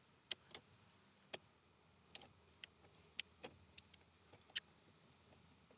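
About a dozen faint, irregular small clicks and ticks of hands working the blend door cable and its clip under a Jeep Cherokee's dash, the sharpest just after the start.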